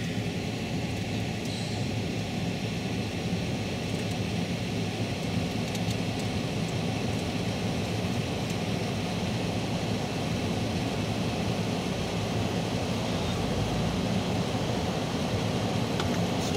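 Police helicopter flying low overhead, a steady rotor and engine drone mixed with road traffic noise, growing slightly louder near the end.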